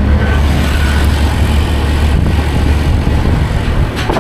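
A vehicle engine running steadily with a low hum, and a short sharp click near the end.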